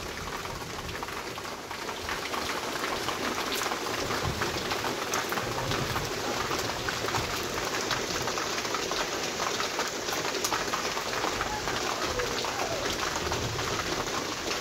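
Storm rain falling steadily: an even hiss of water dotted with many sharp drops striking.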